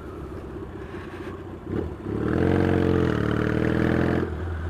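Yamaha XS650 SG parallel-twin engine running on the road, light for the first two seconds, then opened up about two seconds in and pulling louder, with the pitch rising a little, for about two seconds before easing off near the end.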